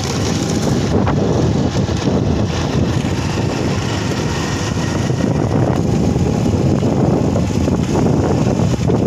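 Steady, loud wind rush on the microphone of a moving vehicle, with the vehicle's engine and the rumble of its tyres on the rough road beneath it.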